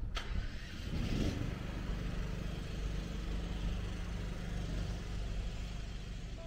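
Steady low outdoor rumble of a city riverside park, with a sharp click just after the start and a brief louder rush of noise about a second in.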